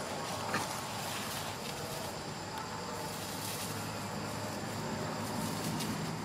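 Outdoor ambience: a steady background hiss with a low hum, a faint steady high tone and a few soft, brief rustles of dry leaf litter underfoot.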